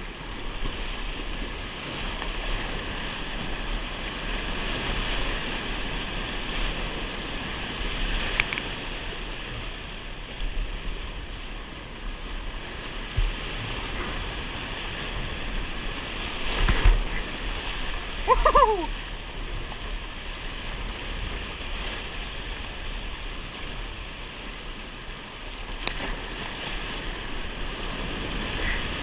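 Whitewater rushing through a Class IV rapid, heard from a camera riding on a kayak in the middle of it, with spray and water striking it. The rush is steady, broken by a few sharp splashes or knocks.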